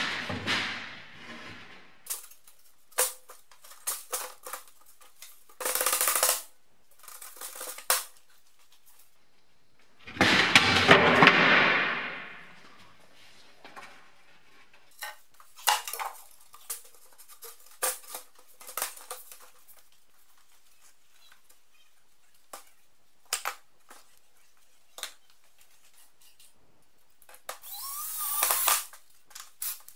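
Scattered knocks and clatter of wooden boards being handled and fitted, with a louder rush of noise about ten seconds in. Near the end a cordless drill spins up briefly to drive a screw.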